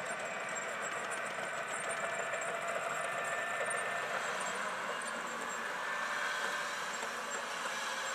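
M1A1 Abrams main battle tank on the move: a steady sound of its tracks running over gravel and its engine, with no gunfire.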